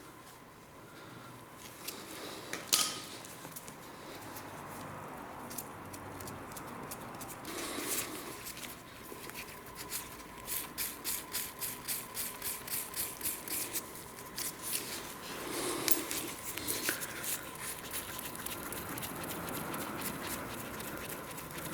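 Quiet clicking, rattling and scraping of metal parts being handled, with a run of regular clicks, about two or three a second, in the middle. A faint steady high tone sounds underneath.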